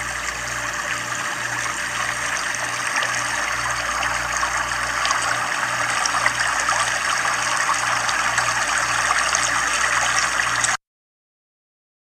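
Steady rushing, water-like noise in a space-themed soundscape, slowly growing louder over a low hum that pulses about one and a half times a second; it cuts off suddenly near the end.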